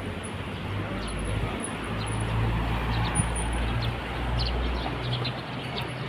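Steady city traffic hum with a low engine rumble that swells from about a second in and fades near the end. A few faint, short, high bird chirps sound over it in the second half.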